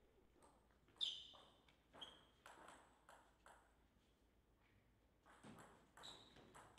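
Table tennis ball ticking on the table and bats. A sharp ringing tick comes about a second in, then a few taps about half a second apart, and near the end the quicker ticks of a serve and the first strokes of a rally.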